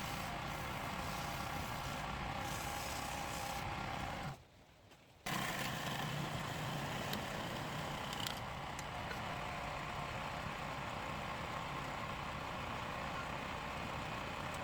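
Steady mechanical running noise with a low hum, cut off abruptly for about a second a little over four seconds in, then continuing.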